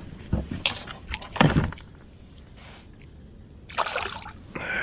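Knocks and rustles of handling on an inflatable boat, then a splash on the water a few metres from the boat near the end.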